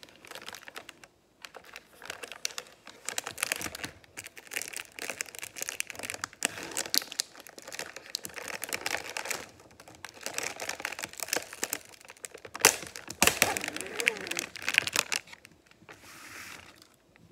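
The plastic film wrapper of a pack of Oreo cookies crinkling as it is handled and peeled open. It comes as a dense run of irregular crackles, loudest about two-thirds of the way in.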